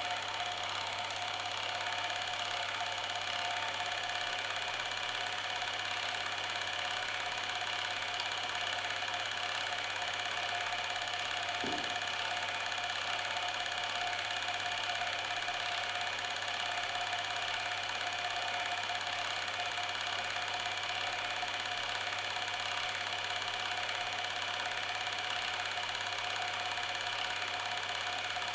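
A small machine running steadily: a constant mechanical whir with a steady hum beneath it, and a brief low knock about twelve seconds in.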